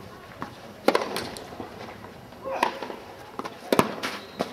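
Tennis balls struck by rackets and bouncing on a clay court during a rally: several sharp pops a second or more apart, the loudest about a second in.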